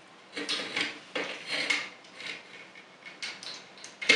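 Plastic joints and parts of a small toy robot figure clicking and rubbing as its arms are moved into place, a string of light irregular clicks.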